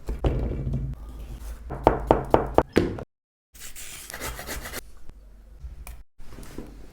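Knife chopping vegetables on a cutting board: a quick run of about six sharp strikes about two seconds in, then fainter, scattered cutting after a brief dropout.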